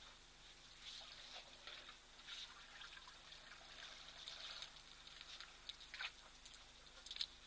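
Faint, irregular rustling and crackling with trickling, water-like sounds from an African elephant moving at close range, with a few sharper clicks near the end.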